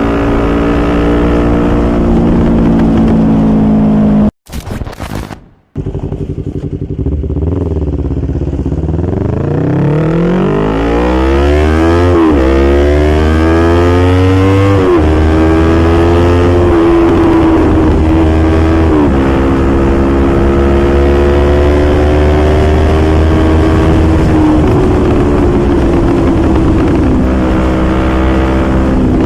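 Yamaha R25's parallel-twin engine pulling through the gears: the pitch climbs, then drops at each upshift, several times. The sound cuts out briefly about four seconds in.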